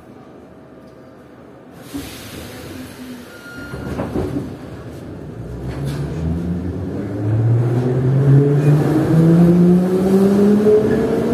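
Metro train pulling away from the station, heard from inside the car. There is a jolt about four seconds in as it starts to move, then the electric traction motors whine, rising steadily in pitch and getting louder as the train gathers speed.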